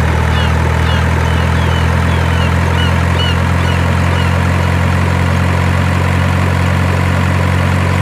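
Steady low engine drone at constant speed, the simulated diesel sound of a toy RC dump truck, with a run of short high chirps, about two a second, over the first half.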